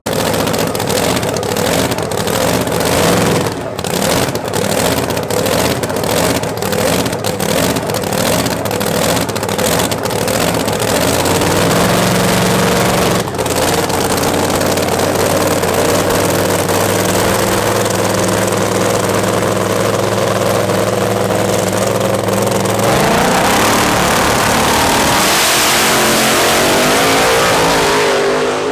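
Ear-piercingly loud drag-racing funny car engine. For about the first ten seconds it is revved in rhythmic pulses, then it holds a steady note while the car sits on the line. About 23 s in it launches, the pitch rising as it accelerates away at full throttle.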